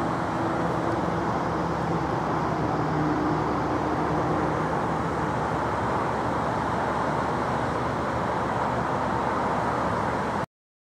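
Steady outdoor roar of distant road traffic, with a faint low hum through the first few seconds. The sound cuts off abruptly near the end.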